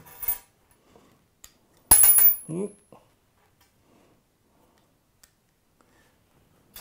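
Small metal cleat hardware clinking once, sharply, about two seconds in, with a brief high ring, then a few faint clicks as the washers are fitted into a new SPD-SL cleat.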